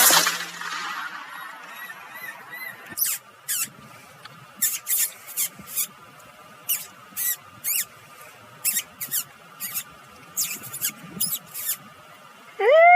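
A sharp bang with a ringing tail, then about twenty short, high squeaks at irregular intervals; near the end a loud, steady tone rises in and holds.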